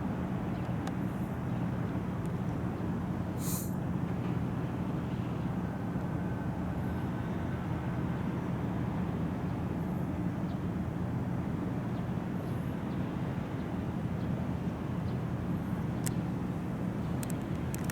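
Car ferry's engines running with a steady low drone, plus a brief hiss about three and a half seconds in.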